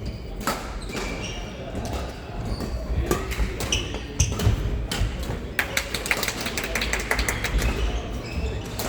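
Badminton play in a sports hall: rackets hitting the shuttlecock with sharp clicks and shoes squeaking on the court floor, over background chatter, with a quick flurry of clicks about six seconds in.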